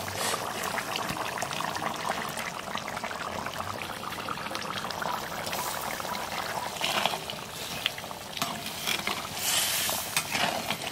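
Thick chicken curry bubbling and sizzling in a clay pot over a wood fire, a steady run of small pops and crackles. A spatula stirs through it near the end.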